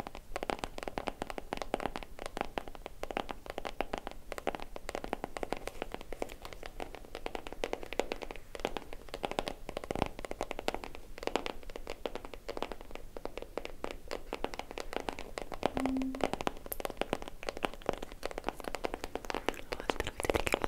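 Fingernails tapping and scratching on a Tiffany & Co. cardboard gift box held close to the microphone: a fast, dense stream of small taps and scrapes, with one louder knock about halfway through.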